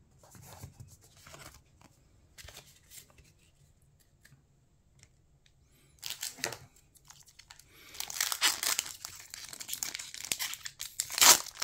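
A foil Pokémon booster pack crinkling and being torn open by hand, starting about six seconds in and loudest near the end.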